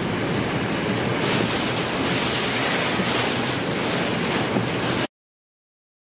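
Severe thunderstorm winds blowing hard over the microphone: a loud, steady rushing noise that cuts off suddenly about five seconds in.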